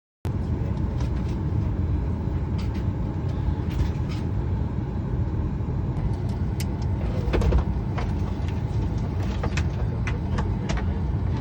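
Airliner cabin noise inside a Boeing 737 MAX 8: a steady low rumble of air and machinery that starts abruptly, with scattered light clicks and knocks, more of them in the second half.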